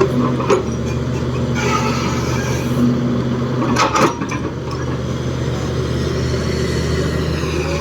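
Heavy diesel engine of an excavator running steadily under load, with a few sharp metallic knocks and clanks, the loudest about four seconds in.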